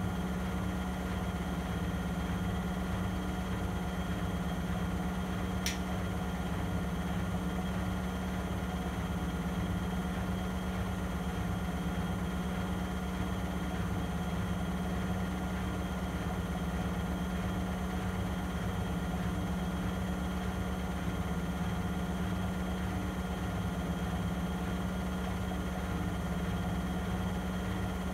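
Vestel CMI 9710 front-loading washing machine on its 800 rpm full spin: a steady motor hum over a fast, regular low throb from the spinning drum. A single small click about six seconds in.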